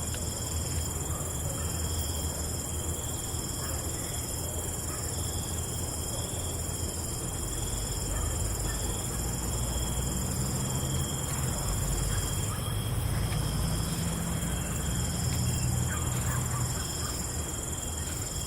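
Night insect chorus: crickets trilling steadily in several high pitches, one of them in repeated on-and-off phrases, over a low rumble.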